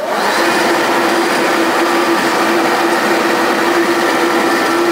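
Wickman 1 3/4-inch eight-spindle multi-spindle automatic screw machine running: a loud, even mechanical din with a steady hum tone.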